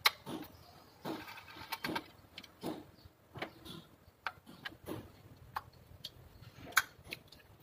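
Irregular light clicks and knocks of hands handling the ignition coils and connectors on a stopped Toyota 2TR four-cylinder engine, with one sharper click near the end.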